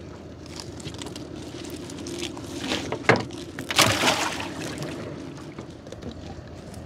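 A wet gill net being hauled over the side of a wooden boat, water splashing and dripping from the mesh. Louder splashes come about three and four seconds in, over a steady low hum.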